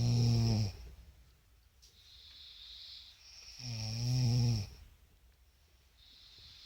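A person snoring in sleep: a low, pitched snore about a second long that fades just after the start, and another about three and a half seconds in, with breathy hissing of air between them.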